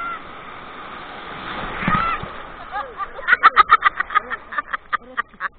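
People's voices over a steady background rush, with a quick run of short, pitched sounds in the second half.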